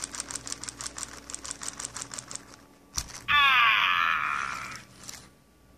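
Furby Boom toy's internal motor and gears clicking rapidly, about ten ticks a second, for a couple of seconds. Then, after one sharp click, the Furby gives a high, wavering electronic warble lasting about a second and a half.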